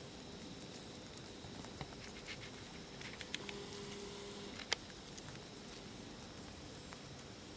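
A night insect's high-pitched chirp, repeating a little more than once a second. Around the middle come a few faint scratchy clicks, then one sharp click.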